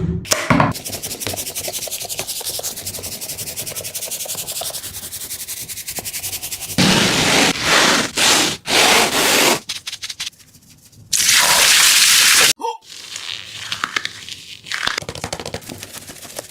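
Squishy toys being squeezed and rubbed by hand, giving a run of crackling, scraping and rustling sounds. The sound changes abruptly several times, with short separate bursts of squeezing and a brief steady hiss near the middle.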